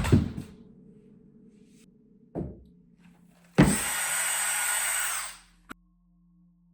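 A dull thump, then about a second later an electric power drill starts suddenly, runs steadily for a couple of seconds with a whine, and stops, followed by a short click.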